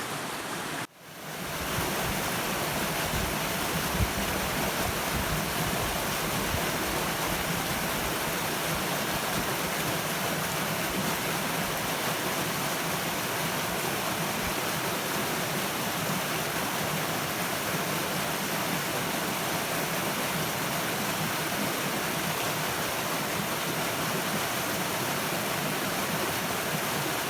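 Steady, full rush of a river tumbling over rocks at a small waterfall. It breaks off briefly about a second in, then fades back in.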